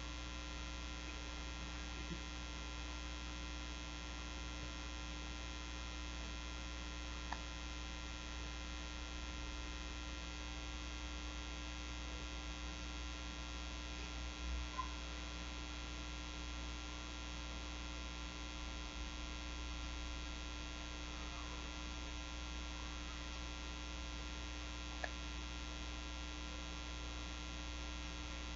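Steady electrical mains hum made of many fixed tones, with a strong low drone underneath, and a few faint clicks.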